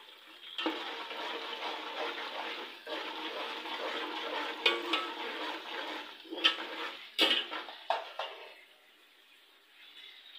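Chicken curry frying in a pan and being stirred with a spoon, a steady sizzle with the spoon knocking against the pan about four times in the second half. The sizzle drops away near the end.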